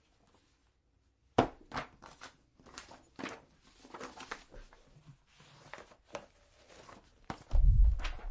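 Paper and books being handled: a sharp knock about a second and a half in, then irregular rustling, flipping and small knocks, and a heavy, low thump near the end.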